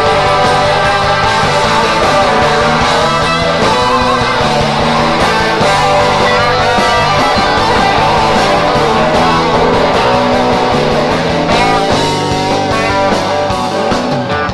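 Live rock band playing an instrumental passage, a guitar carrying the lead over bass and drums, with bending, wavering notes in the last few seconds.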